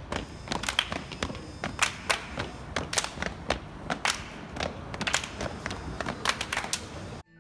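Group body percussion: many hands clapping and slapping with thuds mixed in, several strikes a second in a quick, uneven rhythm. It cuts off suddenly near the end.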